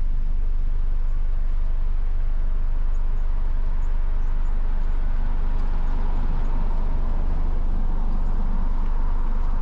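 Car engine idling, a steady low hum heard from inside the parked car.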